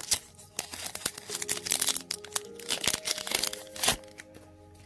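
Foil wrapper of a Pokémon booster pack crinkling and crackling in quick irregular bursts as the cards are pulled out and handled. The loudest crackle comes near the end.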